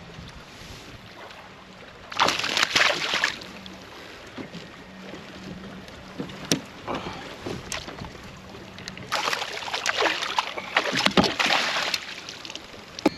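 Water splashing and sloshing at a kayak in two loud bursts, a couple of seconds then about three seconds long, with a few sharp clicks and a faint steady low hum underneath.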